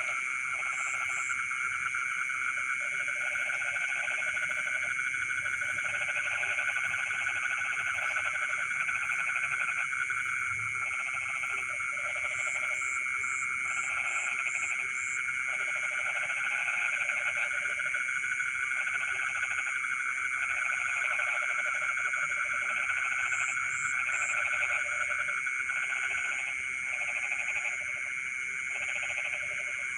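Chorus of frogs in a rice field calling in bouts about a second long with brief gaps, over a steady high trilling.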